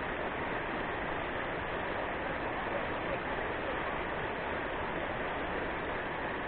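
Steady rushing of river rapids, an even, unbroken water noise.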